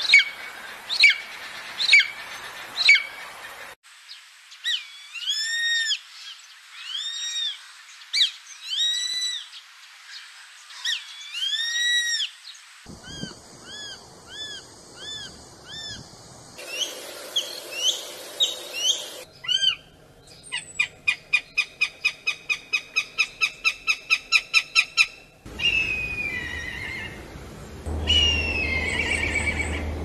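Calls of several birds of prey edited back to back. First come shrill calls about once a second, then a run of arched, slurred whistles, then shorter call series, among them a fast, even run of about four sharp calls a second.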